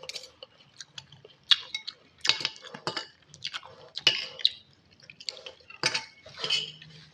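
A spoon and fork clinking against a bowl of instant noodle soup, with wet slurping and eating noises in a string of short, sharp sounds.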